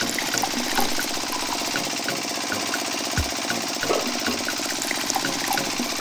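Small motor of a miniature belt-driven crushing machine running steadily, a whir with rapid regular clicking, while juice pours from its spout into a cup.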